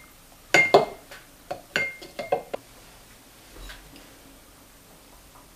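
Kitchen utensils and glassware clinking and knocking, about eight quick strikes in the first two and a half seconds, a few with a short ring, stopping about two and a half seconds in.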